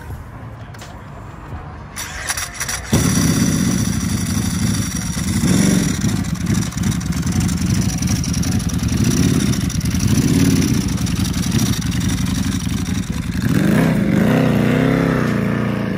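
Ducati Superleggera V4 motorcycle's V4 engine starting with a sudden catch about three seconds in, then running with several throttle blips. Near the end the revs rise and fall as the bike pulls away.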